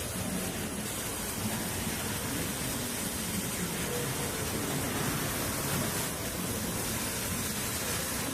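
Steady noisy running of a woodworking sanding machine for curved work, with a faint wavering low hum beneath.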